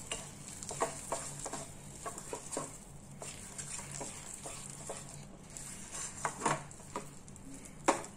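Wooden spatula stirring and scraping thick gooseberry paste around a pan, with irregular scrapes and knocks and a few louder knocks near the end.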